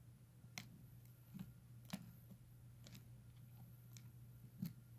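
Near silence: room tone with a steady low hum and several faint, scattered clicks.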